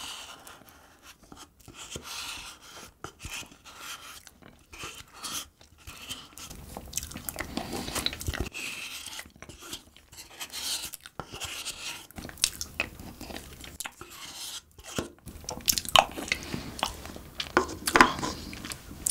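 Close-miked chewing and wet mouth sounds of a person eating soft cream cup cake, with many irregular smacks and clicks.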